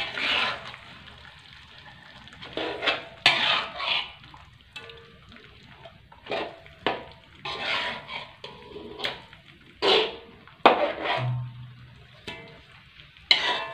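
Metal spatula scraping and knocking against an aluminium wok while stirring and turning pomfret pieces in thick chili spice paste, in about a dozen irregular strokes.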